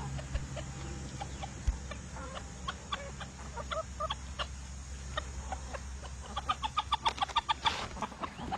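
Chickens clucking: scattered short clucks, then a quick run of louder clucks about six to seven seconds in, over a steady low hum.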